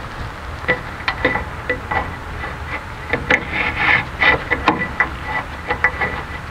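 Irregular light metallic clicks, taps and scrapes of a steel brake line and its flare nut being worked against a new drum-brake wheel cylinder while the line is bent around to start the nut in its threads.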